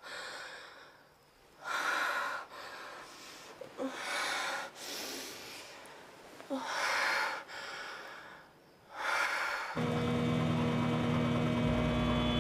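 A young woman breathing heavily, one loud gasping breath about every two seconds. About ten seconds in, a steady drone takes over.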